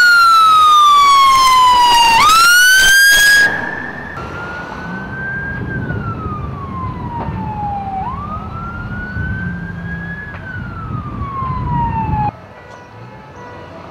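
Emergency vehicle siren wailing, its pitch sweeping slowly down and up. It is very loud for the first few seconds, then fainter with a low rumble beneath it, and cuts off abruptly near the end.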